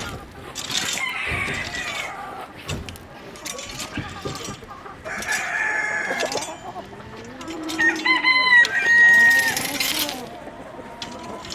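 Chickens clucking and calling, with a rooster crowing about eight seconds in: a held, pitched crow of a second and a half or so.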